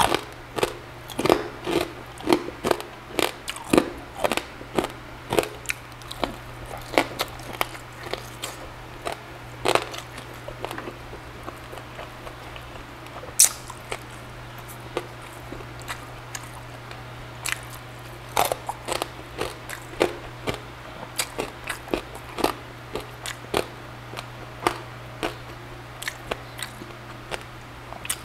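Mouth-noise chewing and biting of charred grilled pork belly, with sharp crunches coming about twice a second and a sparser stretch in the middle. A steady low hum runs underneath.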